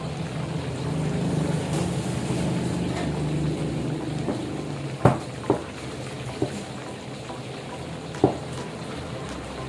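Food cooking in a pan, with a steady low hum and a sizzle, and four sharp knocks in the second half.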